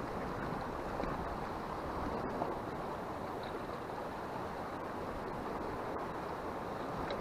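Steady rushing wash of sea surf against a rocky shore, mixed with wind, with no distinct events.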